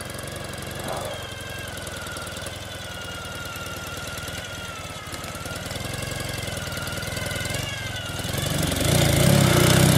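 Ural sidecar motorcycle's air-cooled flat-twin engine running at low speed as the rig approaches, getting louder near the end as it pulls through a washed-out dip in the road.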